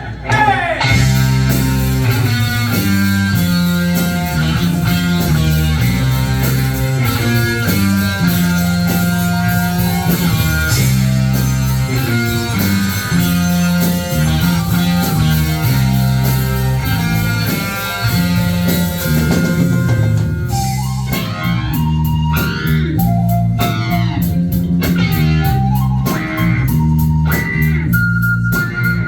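Live band playing a rock song: a stepping bass line, drum kit and electric guitar. About twenty seconds in the dense full-band part thins out and a higher, gliding melody line comes in over the rhythm.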